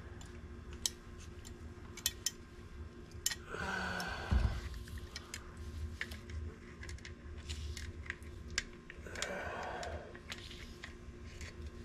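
Faint metallic clicks and taps from a motorcycle brake caliper and hand tools being handled, with two short hisses about three and a half and nine seconds in from an aerosol lubricant can sprayed through its straw into the caliper.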